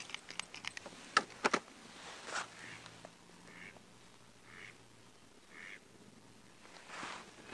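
A duck quacking faintly, several short calls about a second apart. Before the quacks, in the first second and a half, comes a run of sharp clicks and two louder taps.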